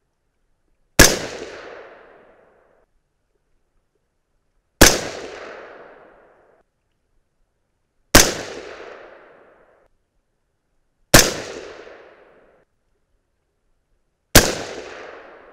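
Five rifle shots from a suppressed AR-15-style .223 Remington rifle firing 77-grain Sierra MatchKing handloads, spaced about three to three and a half seconds apart. Each shot is a sharp crack followed by an echo that fades over a second or so.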